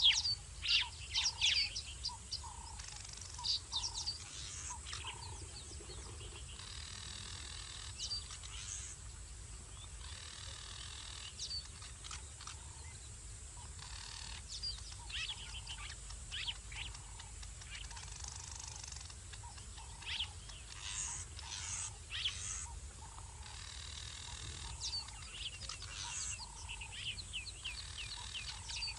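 Several birds calling with many short, quick chirps that overlap and come in clusters, plus a few short rapid trills, over a steady low hum.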